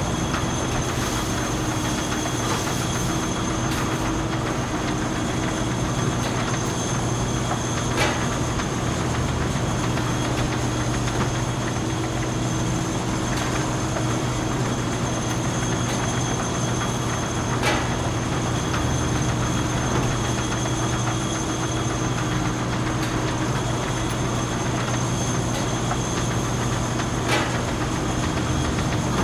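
Industrial machinery running steadily on a metalworking shop floor, a constant mechanical hum with high whining tones, broken by a sharp click or knock about every ten seconds.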